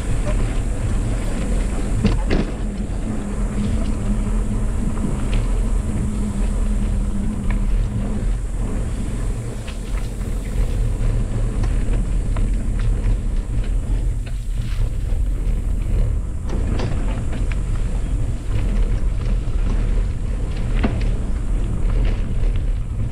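Schwinn mountain bike rolling along a bumpy dirt trail: a steady low rumble of tyres and wind buffeting the microphone, with scattered knocks and rattles as the bike hits bumps.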